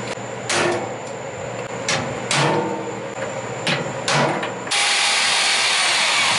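Several sharp strikes of a hammer on a punch, marking a hole in the mower's metal frame, then a corded electric drill starts about three-quarters of the way through and runs steadily, drilling into the frame.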